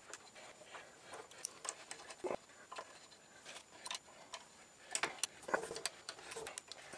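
Light, irregular metal ticks and scrapes of a thin rod picking swarf out of a threaded lathe backplate adapter, a few louder clicks about two seconds in and again around five seconds.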